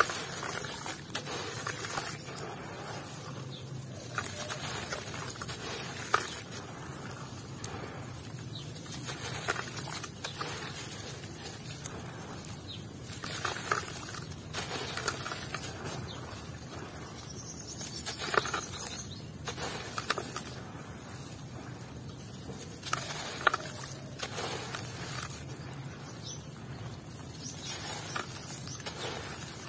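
Lumps of dry, gritty red dirt crumbled by hand, the crumbs pattering and splashing into a basin of water in irregular bursts, over a faint steady low hum.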